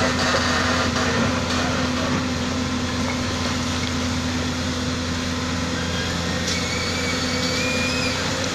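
Hyundai crawler excavator's diesel engine running steadily with an even hum as the machine digs and swings its boom toward a dump truck.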